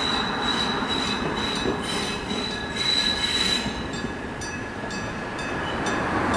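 Two-car 6000-series electric train's wheels squealing as it rounds a tight street-running curve at low speed, over a low rumble of running gear. A steady high squeal gives way about four seconds in to a fainter, lower squeal as the train draws away.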